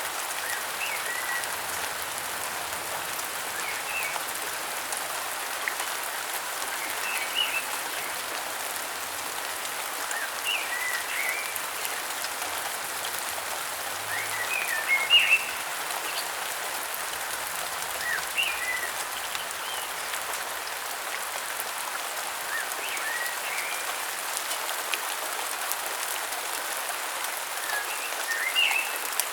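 Steady rain hiss in a rainforest, with a bird giving short chirping phrases about every three to four seconds.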